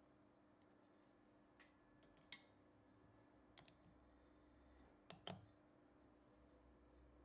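Faint clicks and light knocks as the air cylinder and regulator of a PCP airgun are turned and handled in the hands, about half a dozen in all, the loudest a little after two seconds and about five seconds in. A faint steady hum lies underneath.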